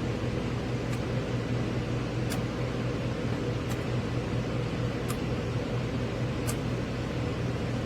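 VIVOSUN AeroWave E6 clip fan with its EC motor running steadily: an even rush of air over a low hum, with a faint high tick about every second and a half.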